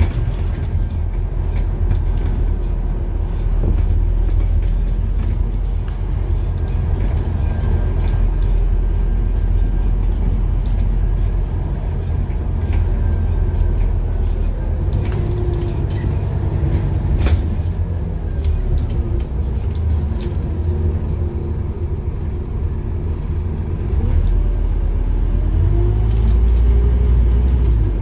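Inside a Scania N230UD double-decker bus on the upper deck: the diesel engine and drivetrain running under way with a heavy low rumble and scattered clicks and rattles of fittings. About three-quarters of the way through the engine note grows louder and rises in pitch as the bus pulls harder.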